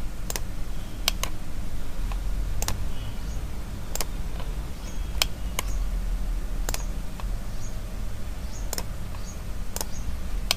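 Computer mouse clicking: about ten sharp clicks at irregular intervals, each a second or so apart, made while deleting sketch segments in a CAD program.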